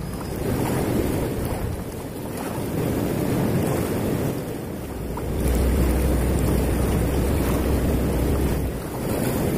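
Fast, swollen river water rushing over stones, with wind buffeting the microphone and rumbling more strongly for a few seconds in the second half.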